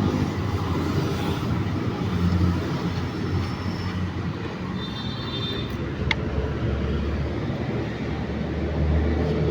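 Steady low vehicle rumble, with a short click about six seconds in.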